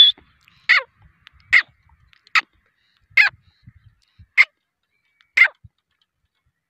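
Grey francolin calling: a series of seven loud, sharp, shrill notes, evenly spaced a little under a second apart.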